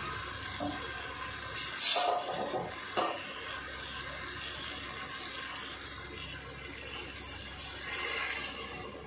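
Mutton cooking stock poured into a hot pot of mutton masala, splashing over a steady sizzling hiss, with two louder splashes.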